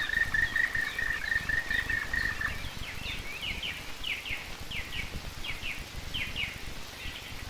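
Songbirds singing: a rapid trill held on one pitch for about the first two and a half seconds, then a run of short, falling chirps, mostly in pairs.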